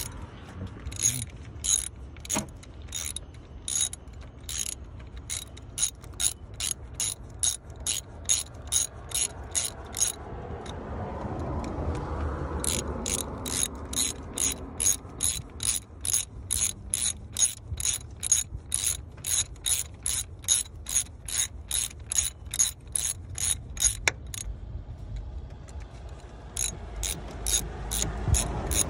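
Hand ratchet wrench clicking in a steady run of sharp clicks, about two to three a second, as it turns bolts on the engine. The clicking stops twice for a couple of seconds.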